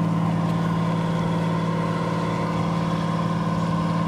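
River car ferry's engine running with a steady, even drone as the ferry moves away from the bank.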